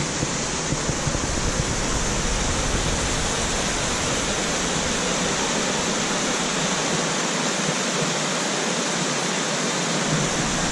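Phantom Falls waterfall: a steady rush of falling water.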